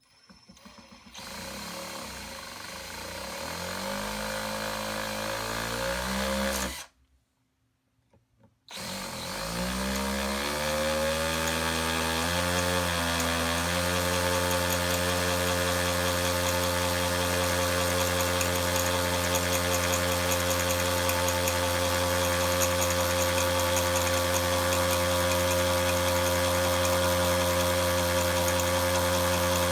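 Electric drill spinning up with a rising whine, stopping for about two seconds around seven seconds in, then running up again and holding a steady full-speed whine for the rest. It is drilling pilot holes.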